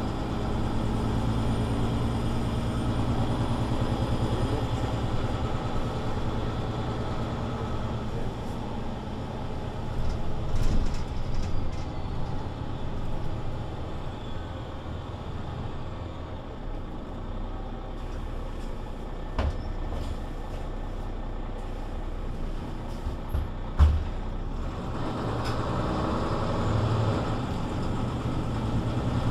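Mercedes-Benz Citaro C2 city bus with Voith automatic gearbox running: the engine pulls with a steady low hum at first, eases off around a third of the way in amid some rattles and knocks, then comes back up near the end. A single sharp knock stands out shortly before the engine picks up again.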